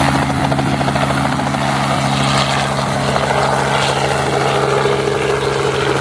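Robinson R44 light helicopter lifting off and climbing away, its engine and main rotor running steadily at flight power with an even beat from the blades.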